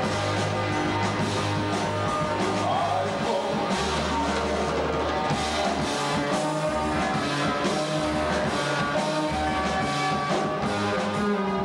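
Live rock band playing: electric guitar, bass guitar and a drum kit with cymbals, at a steady loud level.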